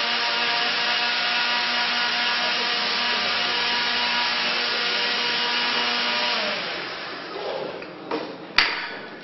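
Countertop blender running steadily with liquid in its jar, then switched off about six and a half seconds in and winding down. A few knocks follow, then one sharp click near the end, the loudest sound.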